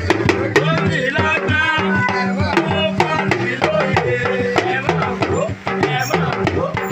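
Music with hand drums and percussion: quick, busy drum strokes over a steady bass line, with wavering pitched melody lines.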